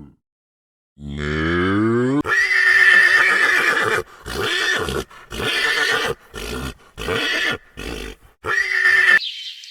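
A large animal calling: a rising call, then a string of about seven short, harsh calls with brief gaps between them.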